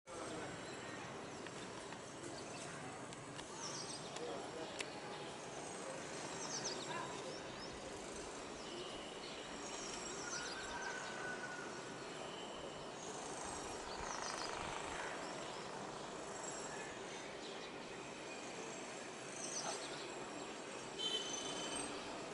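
Outdoor ambience: a steady background hiss with short, high bird calls every few seconds.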